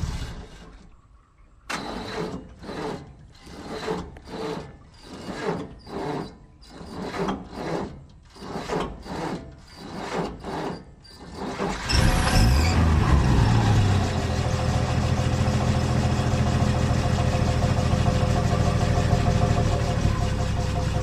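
Car engine being cranked by its starter: a rhythmic churn about twice a second for about ten seconds. The engine then catches, revs briefly and settles into a steady idle.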